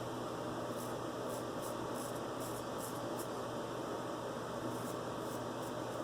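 A vintage George Wostenholm & Sons straight razor scraping short strokes through lathered stubble, about eight quick strokes in a run, then three more near the end, over a steady background hiss.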